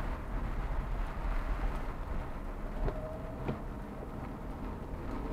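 A car driving on a wet road in rain, heard from inside the cabin: a steady low rumble of engine and tyres with a few scattered sharp taps of raindrops on the windshield.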